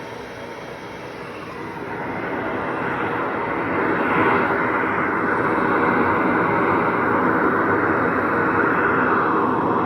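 Mechanical cough assist (insufflation–exsufflation) machine running, a steady rush of blown air that builds over the first few seconds and then holds steady.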